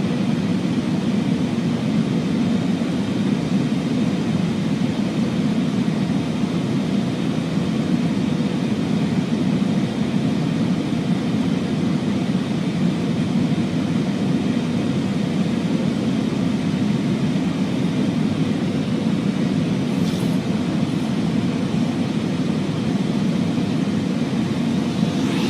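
Steady cockpit noise of an Airbus A340 airliner in flight: a constant low rush of airflow and engine drone with a faint steady hum, and a brief faint hiss about twenty seconds in.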